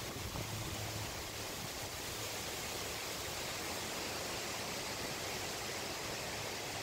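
Steady wind under a passing storm front, an even hiss with no distinct events.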